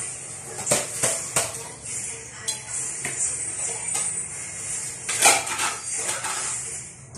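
Metal utensil clinking and knocking against a cooking pot as cooked pasta noodles are lifted and handled, with a louder clatter about five seconds in.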